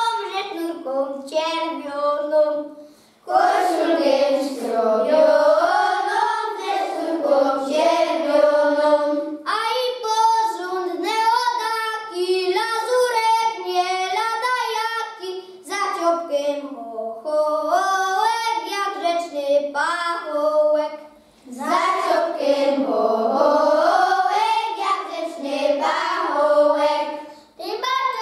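A group of children singing a Christmas carol together, with some women's voices joining in, in sung phrases separated by brief pauses.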